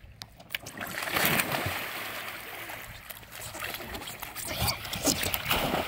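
Lake water splashing and sloshing against the edge of an inflatable floating dock as it rocks under children jumping on it, starting about half a second in.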